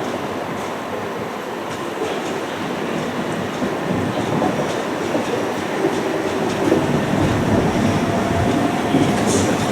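Southern electric passenger train moving along the platform, with steady wheel-on-rail rumble that grows louder from about four seconds in and a faint steady whine. A brief high squeal comes near the end.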